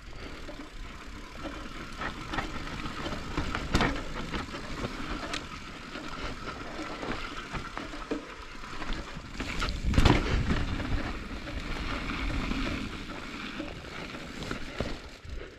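Transition Patrol mountain bike riding down a dirt trail: steady tyre noise over dirt and rock, with the bike rattling and several sharp knocks from bumps, the hardest about ten seconds in.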